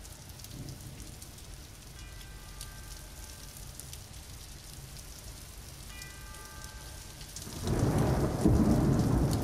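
Steady rain through a thunderstorm. A roll of thunder builds about three-quarters of the way in and is the loudest sound.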